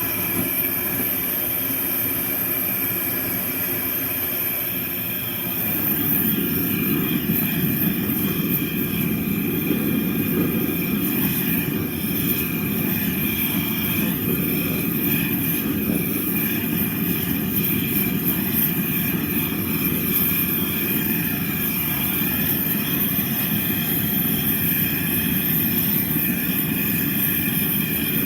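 Soldering torch flame running steadily while heating a silver joint to soldering temperature. It grows louder about five seconds in.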